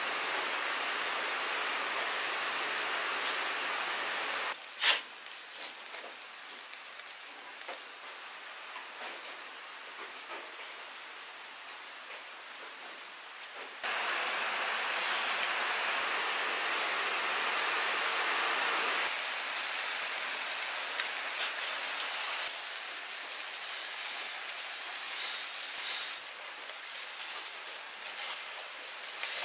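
Steady hiss of rain for the first few seconds. After a sharp click it drops to quieter crackling and sizzling of chicken wings over a charcoal grill, and about halfway through a louder steady hiss returns, with scattered crackles and ticks.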